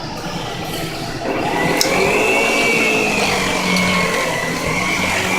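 An Electrolux Silverado vacuum cleaner running, its motor whine getting louder about a second in and then drifting up and down in pitch.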